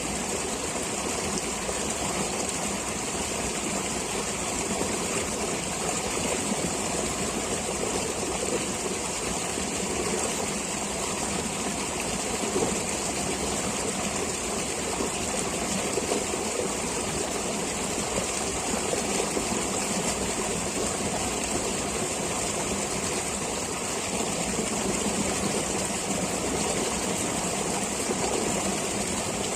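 Flowing stream water running steadily, an even rush of water noise with no pauses.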